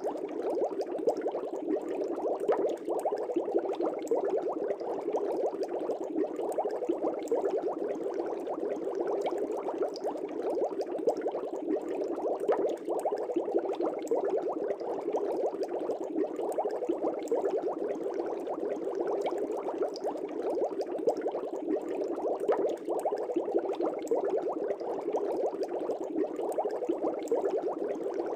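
Aquarium air bubbles rising and breaking at the water surface in a fish tank, a steady dense bubbling and popping.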